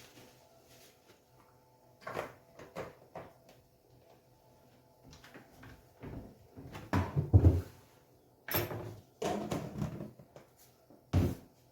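Kitchen clatter: a run of separate knocks and clunks, such as cupboard doors and dishes being handled. The clunks are loudest in the second half, with a sharp clack about halfway through.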